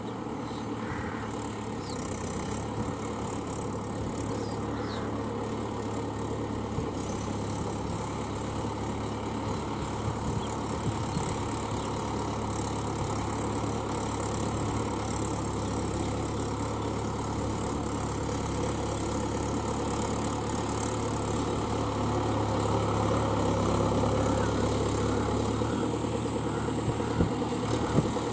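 Mahindra 475 DI tractor's four-cylinder diesel engine running steadily as the tractor works its cage wheels through deep paddy-field mud, growing somewhat louder over the second half. A couple of sharp knocks sound near the end.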